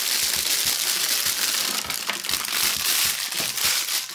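Thin clear plastic candy bag crinkling and crackling as it is handled, pulled open and emptied of small wrapped candies, with a dense run of short crackles.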